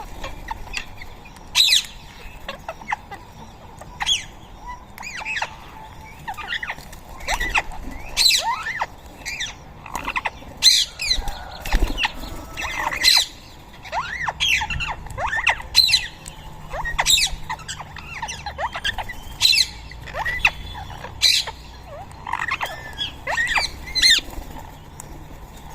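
Rose-ringed parakeets giving repeated shrill, squawking calls, several birds overlapping, with short gaps between bursts.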